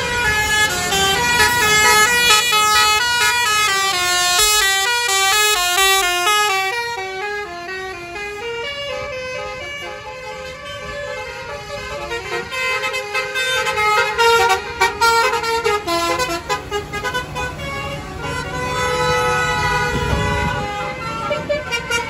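Basuri telolet horns on tour buses playing melodic tunes: several pitched air-horn notes stepping up and down in quick runs, with the low rumble of a bus passing near the end.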